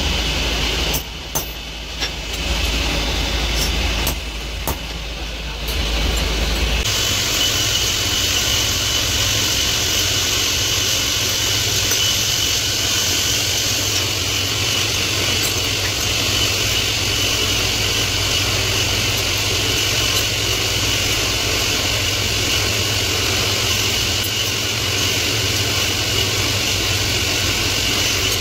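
A few sharp hammer blows on a steel pliers blank at an anvil. Then, about seven seconds in, an electric bench drill press runs steadily, its bit cutting a hole in a forged steel pliers half, with a steady high whine over the motor's hum.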